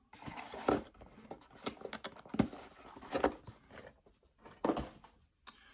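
Handling noise: small clamp parts and their packaging being put into a box, with scattered clicks, knocks and brief rustles.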